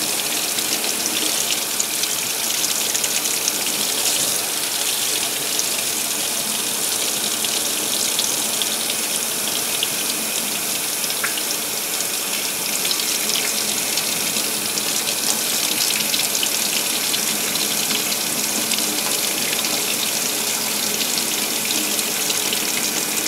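Tap water running steadily, splashing over a circuit board and hands held under the stream in a steel sink.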